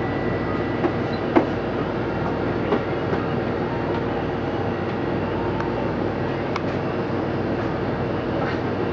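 Steady rushing background noise with a faint hum, broken by a few short knocks in the first three seconds.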